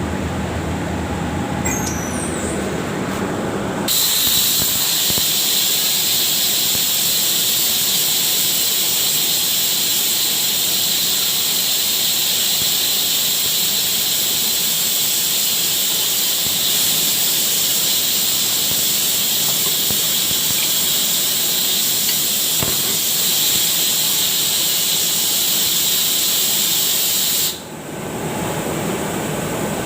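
Compressed air hissing out of an air compressor, loud and steady for about twenty-three seconds and cutting off suddenly near the end. A lower steady running noise is heard underneath before the hiss starts and after it stops.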